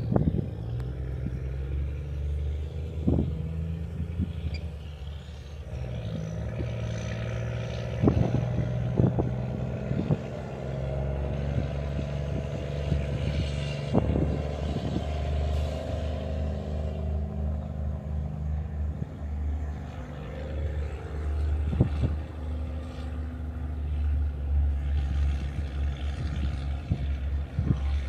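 A steady low mechanical drone, like an engine or machinery running, with several sharp knocks and clatters scattered through it.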